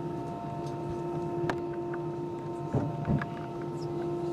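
Steady hum inside an airliner cabin, with fixed tones over an even rush of air, and a couple of short knocks about three seconds in.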